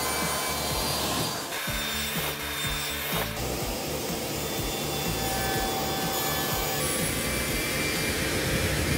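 Circular saw blade running and cutting into wooden blocks, a continuous steady cutting noise.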